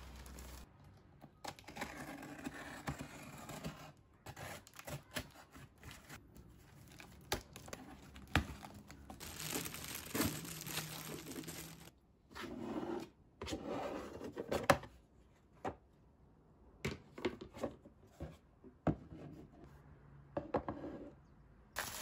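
Plastic courier mailer bags crinkling and tearing as parcels are unwrapped, with scattered sharp clicks and knocks from items being handled.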